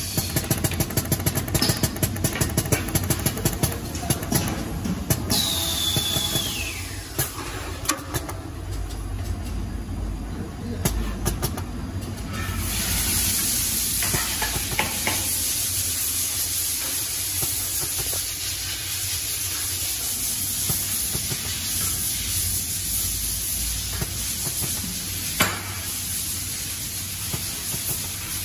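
Working noise of an 18-nozzle plastisol dispensing machine: rapid clicking for the first twelve seconds or so, with a falling whine about five seconds in, then a steady hiss from about twelve seconds on.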